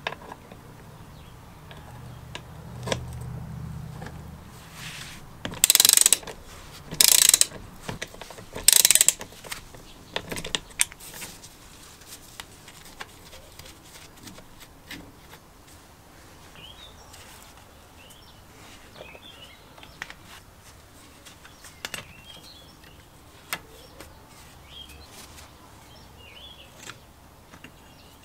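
Socket ratchet wrench clicking in three short fast bursts as it backs rusty nuts off the cover plate of a vintage chain hoist, followed by scattered light metallic clicks as the loosened parts are handled.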